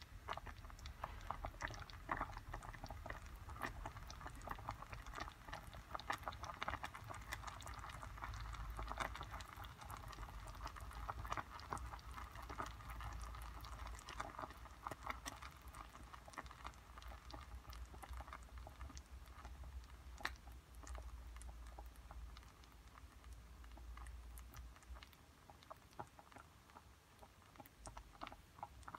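Whole ume plums simmering in a pot of foaming liquid for plum jam: a faint, dense crackle of small bubbles popping, which thins out near the end.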